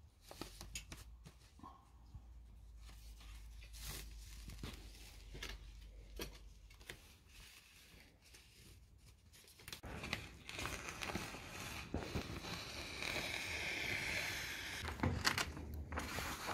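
Thin reflective plastic film being handled and unrolled, crinkling and rustling: scattered soft crackles at first, then a denser, louder stretch of rustling past the halfway point.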